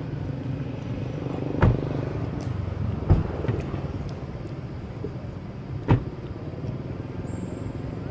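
A steady low rumble like a motor running, with three short sharp knocks: one just before 2 seconds in, one about 3 seconds in and one about 6 seconds in.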